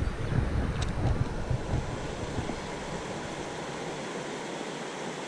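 Steady rush of flowing river water, with wind buffeting the microphone for the first two seconds or so before it settles.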